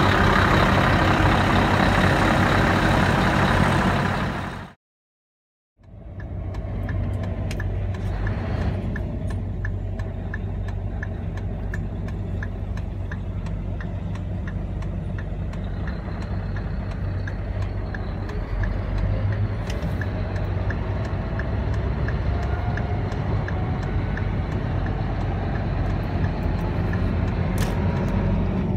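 Lorry diesel engine running close by outside the cab for the first few seconds, cut off suddenly; then the same kind of engine heard from inside the cab, a steady low hum while idling and pulling away, with a regular light ticking over it for a stretch in the middle.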